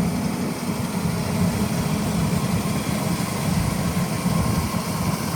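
CAT 320E excavator's diesel engine running steadily, with a low, even drone and no change in speed.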